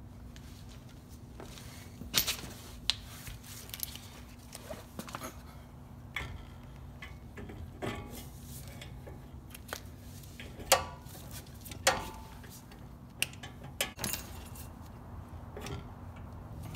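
Scattered sharp metallic clinks and clunks, some ringing briefly, as a new 14.25-inch cast-iron brake rotor with integral hub is slid onto a Ford F-250 Super Duty's front spindle and handled, over a steady low hum.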